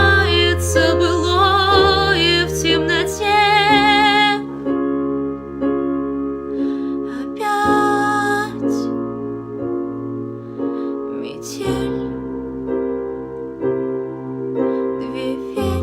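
Pop ballad backing track with piano and electric keyboard chords, and a melody line held with vibrato in the first few seconds and again briefly about eight seconds in.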